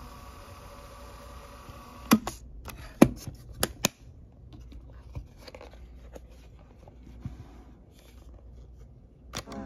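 Sharp plastic clicks and faint rubbing from handling a Sony SXF30 Sports Walkman cassette player as its cassette door is shut and its controls pressed: a cluster of clicks about two to four seconds in, and one more near the end.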